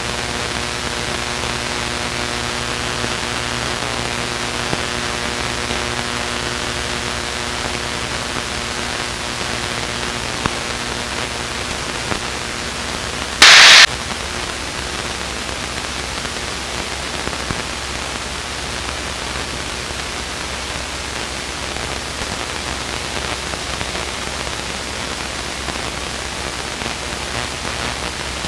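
Steady cockpit noise of a Luscombe light aircraft in flight, heard as a hiss with a faint steady hum from the engine and propeller. About halfway through, a loud burst of static lasts about half a second.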